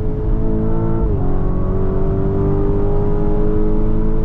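Lamborghini Urus SE's twin-turbo 4.0-litre V8 under hard acceleration. The pitch drops at an upshift about a second in, then climbs steadily through the next gear.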